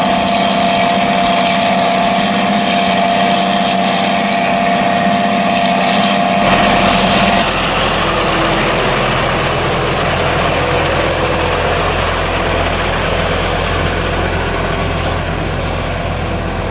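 Heavy farm machinery running at silage work. A steady engine drone carries a high whine for the first several seconds. About six seconds in the sound changes suddenly to a deeper, steady engine rumble.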